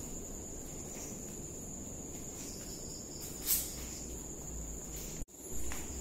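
Crickets trilling steadily in one high continuous tone, with a single short tap about three and a half seconds in.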